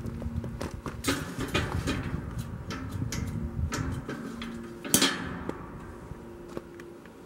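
Irregular light metal clinks and knocks, with the sharpest clank about five seconds in.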